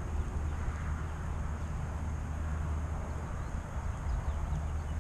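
Wind buffeting the microphone: a steady low rumble with an even hiss above it, and a few faint high chirps near the end.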